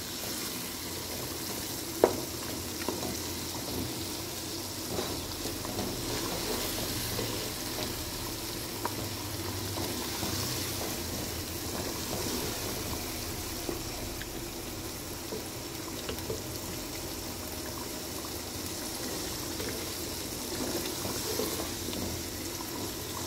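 A wooden spatula stirring a watery meat curry in a large pot: steady sloshing and simmering liquid, with occasional light knocks of the spatula against the pot, the sharpest about two seconds in.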